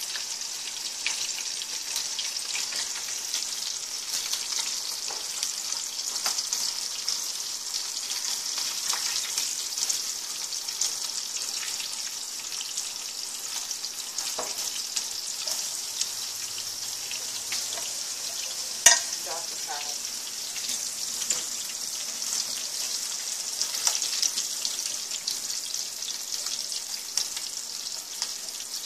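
Breaded pork chops frying in hot oil in a stainless steel pan: a steady sizzle with constant fine crackling. A single sharp click about two-thirds of the way through.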